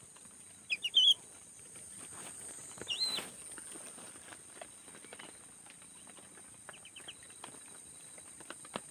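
Whistling ducks giving short high whistled calls: a quick pair about a second in, another about three seconds in and a few faint ones around seven seconds, with scattered rustles and clicks over a steady high hiss.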